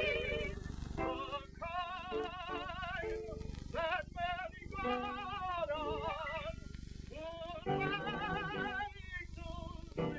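A high solo voice singing slow phrases with a wide, wavering vibrato, over short piano chords, on a worn early optical soundtrack with a steady low hiss and hum beneath.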